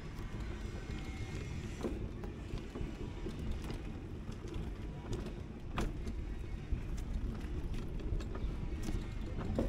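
Outdoor street ambience: a steady low rumble with scattered short clicks and taps.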